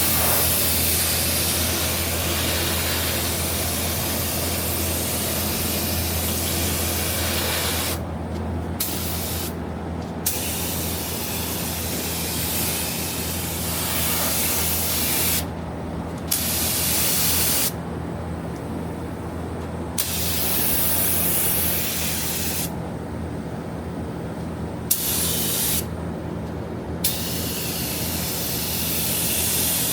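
Compressed air hissing from a pneumatic gun, steady at first, then cut off and restarted several times as the trigger is released and pulled again, over a steady low hum.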